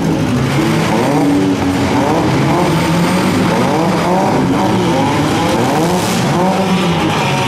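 Several four-cylinder demolition derby cars' engines revving at once, their overlapping pitches rising and falling as the cars drive and ram one another.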